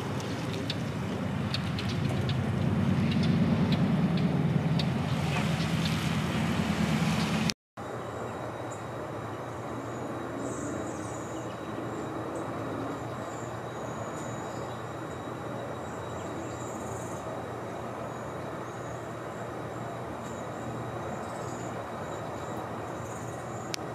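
Outdoor ambience: a low rumble, like passing traffic, swells and fades over several seconds. It cuts to a quieter steady background with scattered faint high chirps.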